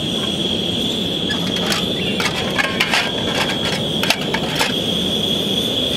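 A lit canister backpacking stove's burner hissing steadily at a turned-up flame, with clinks and knocks as a small frying pan and its handle are picked up and handled several times.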